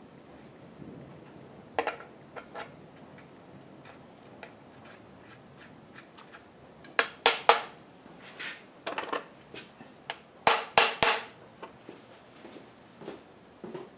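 Steel hand tools clinking and knocking against the steel drill-press table and vise: a few light taps, then three sharp metallic clinks about seven seconds in and three louder ones about ten and a half seconds in.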